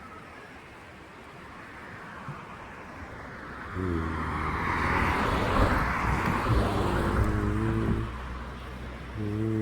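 A motor vehicle passing close by: road and engine noise grows, is loudest about halfway through, then fades. Over it runs a steady low engine note from about 4 s to 8 s, which comes back near the end.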